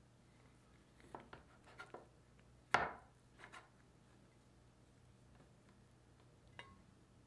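Metal dough scraper cutting down through a log of rolled bread dough, with one sharp knock of the blade on the work surface about three seconds in. Softer taps and rubs of the blade and hands come before it and after it.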